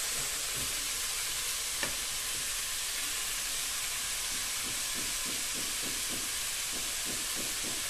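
Grated radish stir-fry sizzling steadily in a non-stick pot while it is stirred with a silicone spatula. From about five seconds in there is a run of quick soft scraping strokes, about four a second.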